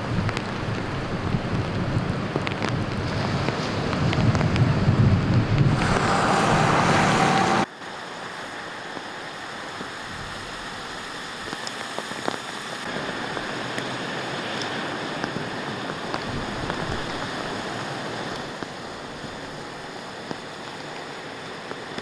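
Vehicles driving through flooded streets in heavy rain: water spraying off the tyres over a steady rush of rain and water. It is loudest over the first seven to eight seconds, then after a sudden cut it drops to a quieter, even wash.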